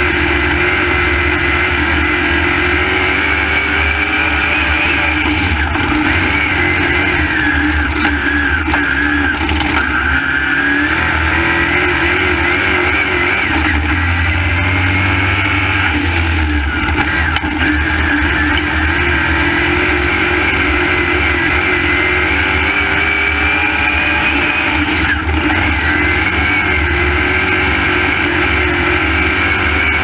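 V8 crate engine of a dirt late model race car, heard from inside the cockpit running hard at race speed. The engine note is loud and steady, its pitch rising and dipping every several seconds as the car goes around the track.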